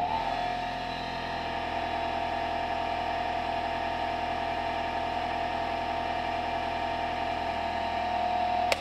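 Bench grinder motor running at full speed with a steady whine, just up to speed after starting. Near the end a sharp click, and the motor shuts off and begins to spin down.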